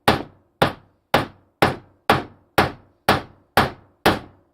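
Steady, evenly paced blows, about two a second, struck on a hardwood block laid over a wood blank to drive a lathe fitting's pins into the wood. Each strike is sharp and rings away briefly before the next.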